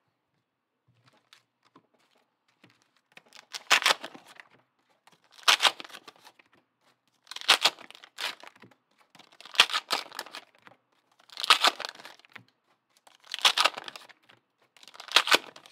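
AFLW TeamCoach trading card packs being torn open one after another: a short tearing rip of the wrapper about every two seconds, seven in all, starting a few seconds in.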